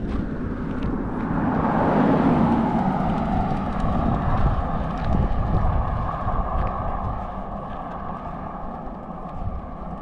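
Car passing on an asphalt road, its tyre and engine noise swelling about two seconds in and then slowly fading.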